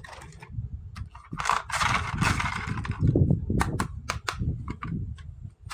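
Close-miked hands handling plastic toys and packaging: soft bumps throughout, a rustling crinkle of about a second and a half near the middle, then a quick run of sharp plastic clicks.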